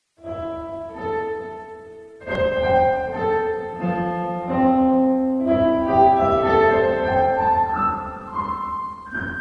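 Instrumental background music led by piano: a slow run of sustained, overlapping notes that begins just after the start.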